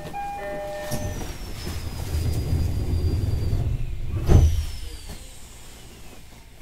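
Door-closing chime of a Shinano Railway SR1 series train ringing its alternating two-note pattern, then the sliding passenger doors closing: a low rumble that builds and ends in a loud thump about four seconds in. A high whine falls slowly in pitch as they close.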